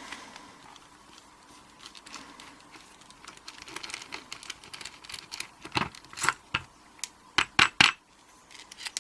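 Small metal clicks and clinks from a steel padlock and tools being handled, with several sharper metal knocks near the end.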